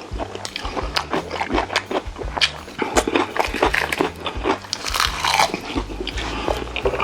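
Close-miked eating sounds of braised chicken: irregular wet chewing, biting and smacking, with quick clicks and squelches.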